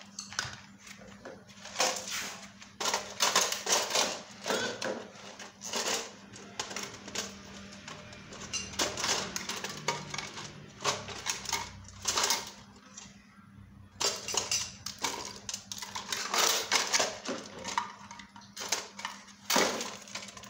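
Small metal parts and tools clinking and rattling as a hand rummages through a metal biscuit tin, in irregular clusters of clatter.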